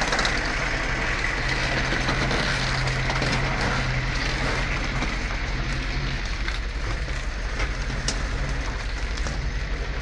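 Heavy logging truck's engine running steadily at low revs as the loaded truck crawls forward, with a few sharp metallic clanks.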